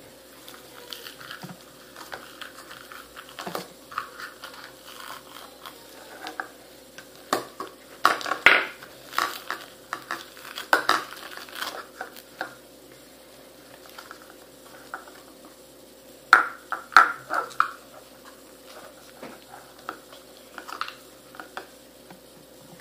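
Purple foam-bead clay being squeezed and pulled apart by hand: irregular crackling and rustling, loudest in clusters about eight to twelve seconds in and again around sixteen to eighteen seconds.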